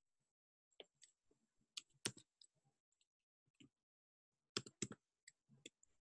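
Faint, irregular clicks from a computer being worked at a desk, scattered singly through the first half and bunched in a quick cluster about four and a half seconds in.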